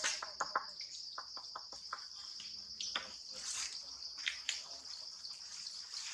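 Insects trilling steadily at a high pitch, with scattered short clicks and snaps over it.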